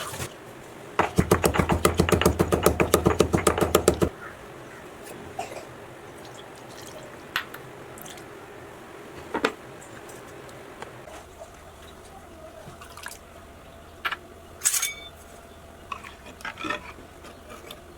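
Kitchen utensil sounds: a rapid, even clatter of about ten strikes a second for roughly three seconds, then scattered clinks and taps of utensils.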